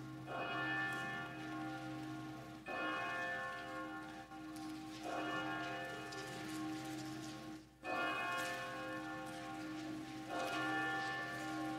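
Church bell tolling, struck about every two and a half seconds, five strokes, each ringing on until the next. This is the ringing of the bells that opens the service.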